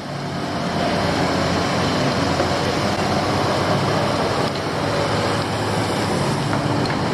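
Heavy diesel construction machinery running steadily, a low engine drone under a dense wash of mechanical noise.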